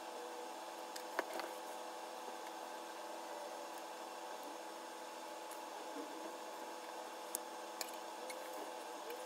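Plastic Lego bricks clicking and tapping as they are handled and pressed together: a couple of sharp clicks about a second in and a few more near the end, over a steady background hum.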